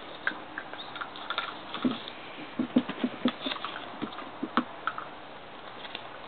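3/4 Cavalier puppies scuffling at play: scattered light taps and clicks of paws and claws, with a few short low puppy grunts about two to three seconds in.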